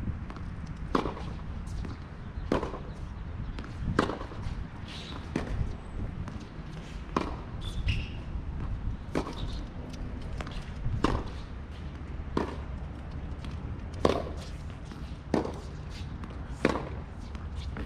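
Tennis balls struck by rackets and bouncing on a hard court during a baseline rally: a sharp pop every second or two.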